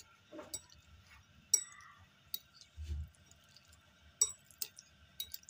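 Metal spoon clinking against a glass bowl while raw chicken pieces are mixed in a wet spice marinade: several short, sharp clinks at uneven intervals, with a soft dull knock about halfway through.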